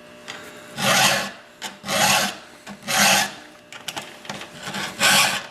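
A hand file rasping across a chainsaw chain's cutting teeth while it is sharpened: about four even strokes roughly a second apart, with lighter scraping in a short gap before the last one.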